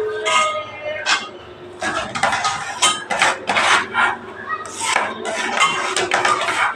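Hands scooping and sweeping chopped fenugreek leaves across a stone countertop into a steel bowl: a quick, irregular run of rustling, brushing scrapes, with light knocks of the steel bowl against the counter.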